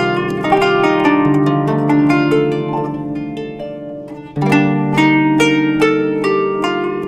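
Kanun, the Turkish plucked zither, playing solo in quick runs of plucked notes that ring and decay. The playing fades about four seconds in, then a strong new phrase begins.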